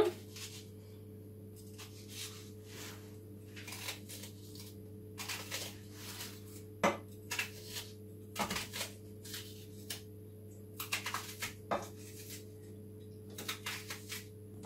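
Knife cutting a red onion held in the hand over a pot, pieces falling in: scattered light clicks and taps, over a steady low hum.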